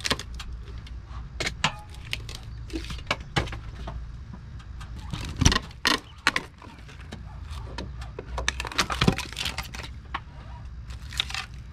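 Irregular knocks, clanks and clinks of hand-tool demolition work on rotted framing boards, with one sharper knock about halfway through, over a steady low hum.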